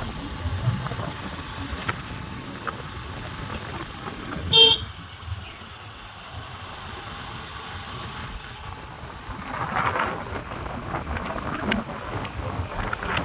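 A single short vehicle horn toot about four and a half seconds in, over the steady noise of a moving vehicle on the road.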